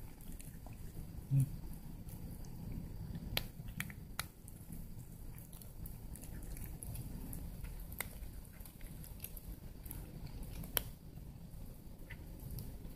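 Cats eating close by, with small sharp chewing and licking clicks now and then over a low steady hum.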